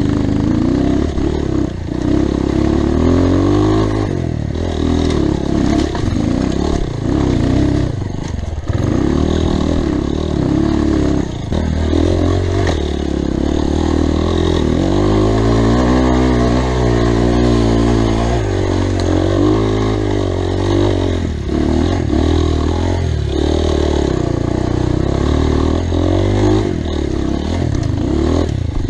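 Dirt-bike engine running hard, its pitch rising and falling over and over as the throttle is opened and eased through the ride.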